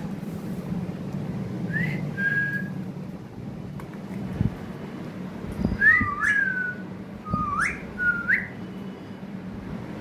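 Short whistled notes that glide up and down in pitch: two about two seconds in, then a run of four or five from about six to eight and a half seconds. A steady low hum runs underneath, with a few soft knocks in the middle.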